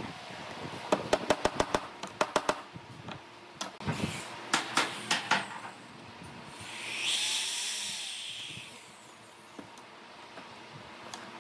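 A claw hammer tapping a nail through a thin wooden strip into a wooden slab, in two runs of quick blows. Then a cordless drill runs and bores through the strip for about two seconds, swelling and fading.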